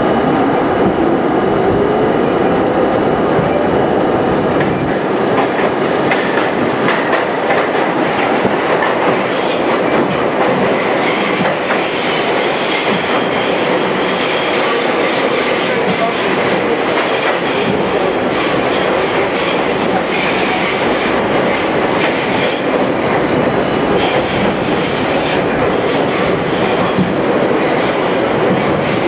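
R32 New York subway car running through the tunnel, heard from the front window. There is a loud, steady rumble of wheels on rail, with frequent clicks from the rail joints and a thin, high wheel squeal coming and going from about ten seconds in.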